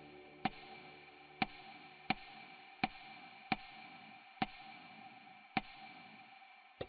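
A ticking sound effect: eight sharp, faint single ticks, spaced about a second apart and slowing toward the end, over a soft steady hiss.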